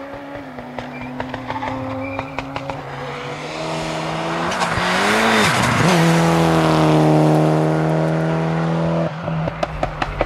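Mitsubishi Lancer Evolution rally car's turbocharged four-cylinder engine approaching at speed and passing close, with scattered sharp pops. Its note climbs and grows louder, dips sharply as the car passes, then holds high and loud as it pulls away, until the sound cuts off suddenly about nine seconds in.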